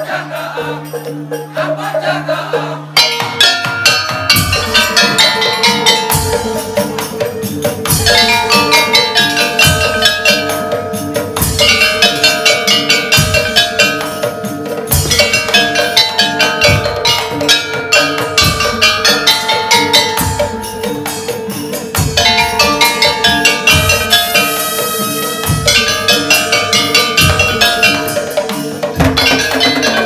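Madurese daul (tong-tong) ensemble playing. For the first three seconds steady held tones sound. Then large barrel drums come in with a loud, regular beat under a quick ringing melody on kettle-gong chimes and metallophones.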